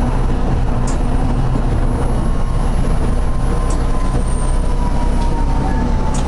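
Hakodate streetcar running along street track, heard from on board: a steady low rumble of motors and wheels on rails. A thin whine slowly falls in pitch from about two seconds in, and a few faint sharp clicks sound.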